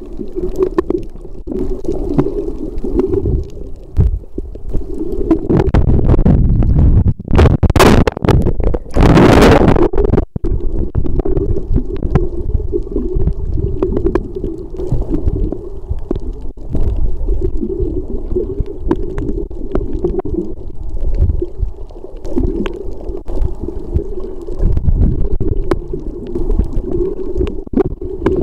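Muffled underwater sound picked up by a camera in a waterproof housing: a steady low rumble and gurgle of water moving against the housing. A louder, hissier stretch comes about eight to ten seconds in.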